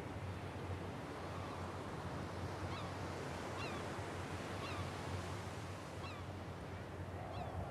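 Steady coastal ambience of wind and surf, with a bird giving five short, falling call notes about once a second from about three seconds in.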